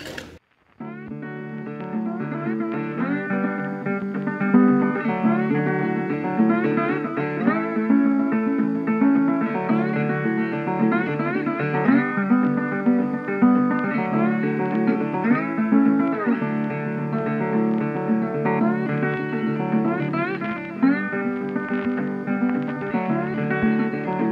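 Background music of plucked acoustic guitar, starting after a brief silence about a second in and playing steadily on.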